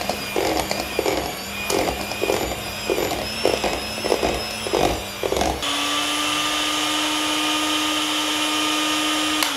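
Electric hand mixer running, its beaters churning thick brownie batter with chunks of cooking chocolate in a stainless steel bowl. The motor whine pulses about twice a second, then a little over halfway through it settles into a steady, even whine.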